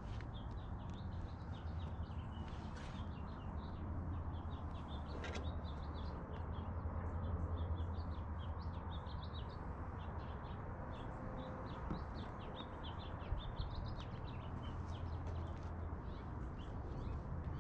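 Small birds chirping continuously in quick short notes, over a low steady hum.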